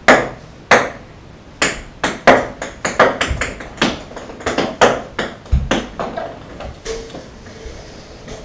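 Ping-pong ball bouncing repeatedly on a wooden table and hard floor: a long string of sharp, ringing clicks, some coming in quickening runs as the ball settles.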